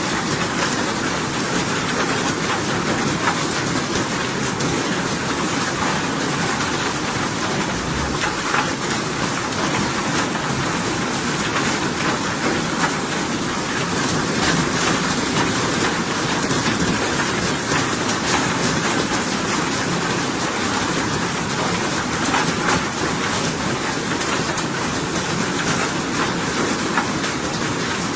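Steady rain: a dense, even hiss of falling water with countless small drop ticks, unchanging in level.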